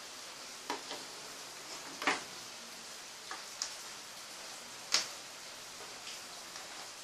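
Light clicks and taps from handling a circuit board, a soldering iron and a just-desoldered capacitor on a wooden table. There are about six, the sharpest about two and five seconds in, over a steady hiss.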